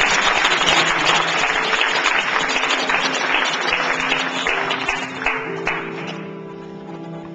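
Theatre audience applauding over piano playing; the applause dies away about six seconds in, leaving the piano.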